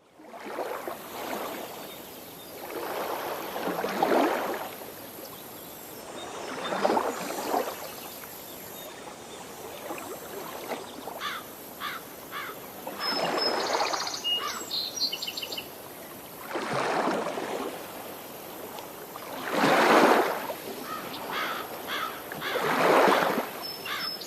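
Outdoor ambience on a nature trail: swells of rustling noise come and go every few seconds. A few short bird chirps sound around the middle and again near the end.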